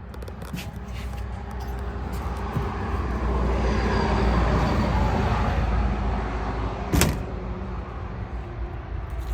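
A road vehicle passing by: its rumble and tyre noise swell to a peak about halfway through, then fade away. There is a single sharp click about seven seconds in.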